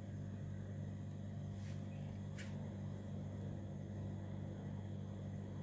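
A steady low hum with a faint regular pulsing under a soft hiss, and two faint clicks partway through.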